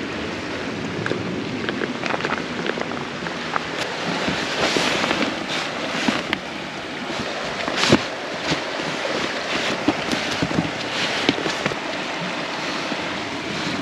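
Steady rushing noise with scattered rustles and knocks from handling the packraft and its pump sack.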